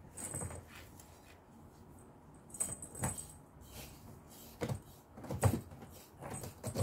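Cat scuffling and clawing on a corrugated cardboard scratcher while grabbing at a wand toy: irregular scrapes, rustles and knocks, the loudest about five and a half seconds in.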